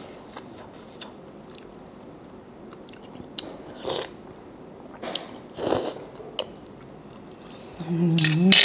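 A person slurping instant noodles and chewing, with short slurps about four seconds in and again around five to six seconds, plus a few small mouth clicks. Near the end comes the loudest moment, a slurp together with a short hummed voice sound.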